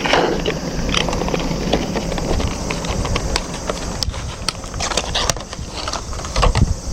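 Irregular clicks and knocks of a plastic hose adapter and fittings being handled and pushed onto an outdoor faucet nozzle, over a low rumble.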